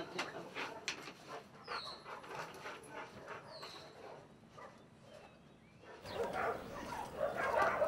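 Dogs whining and barking, with two short high falling cries in the quieter first part; the sound of the dogs gets louder from about six seconds in.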